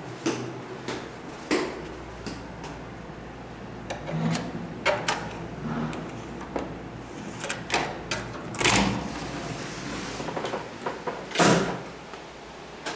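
Scattered clicks and knocks of things being handled in a small room, with two louder thuds about nine and eleven and a half seconds in.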